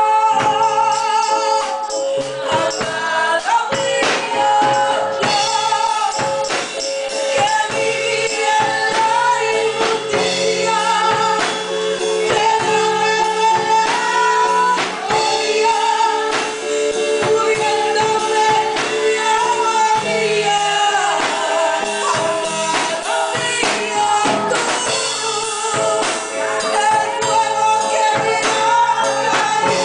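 A woman singing a Spanish Pentecostal worship song live through a microphone, with long held notes and vibrato, over church band accompaniment of drums and sustained chords.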